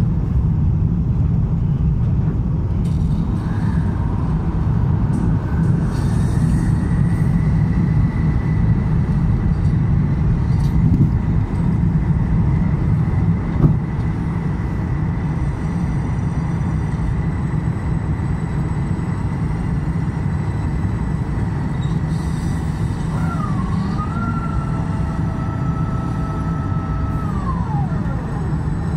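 Airbus A350-1000 cabin noise during the approach: a steady low rumble of engines and airflow, with a faint steady high tone above it. A single knock comes about 14 seconds in. About 23 seconds in, a whine dips, holds steady for a few seconds, then falls away.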